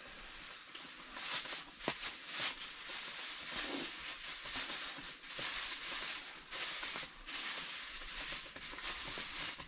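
Plastic bag rustling and crinkling as it is unwrapped by hand, in uneven spurts with a few sharp crackles.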